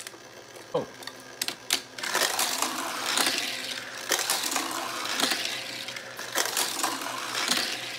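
Die-cast toy cars clattering and rolling on a plastic toy race track: a few sharp clicks in the first two seconds, then a continuous rattling.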